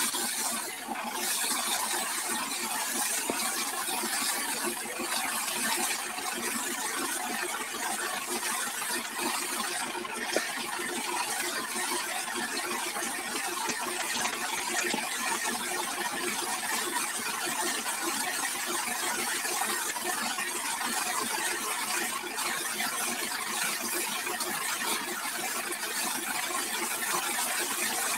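Mahindra Arjun 555 DI tractor's four-cylinder diesel engine running steadily while its rear wheel spins under a jet of water from a hose, with the steady hiss and splash of the spray.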